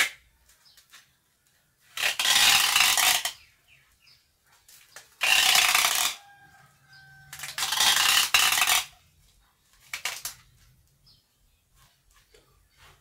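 Adhesive tape pulled off its roll in three long rips, each about a second, as it is wound around a bonsai's root ball, with a few short clicks in between.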